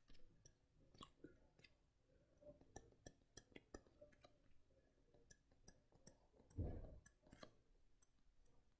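Near silence with faint, scattered clicks of a stylus tapping short strokes on a drawing tablet, and one soft low thump about six and a half seconds in.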